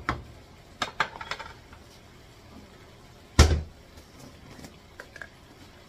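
Kitchen tongs clicking against a frying pan of cooking squid, several sharp clacks near the start, then one loud knock with a low thud about three and a half seconds in, with a couple of faint clicks after.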